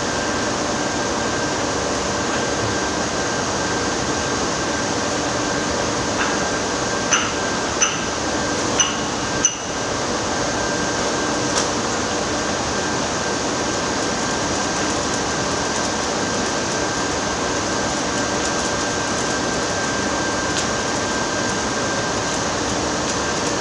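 Electric arc welding: a steady hiss as weld is built up on the worn shaft of a vibrating screen. A few short, sharp high pings sound about a third of the way in.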